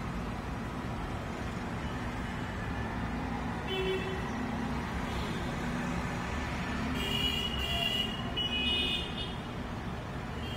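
Street traffic running steadily, with vehicle horns tooting briefly about four seconds in and several more times between seven and nine seconds.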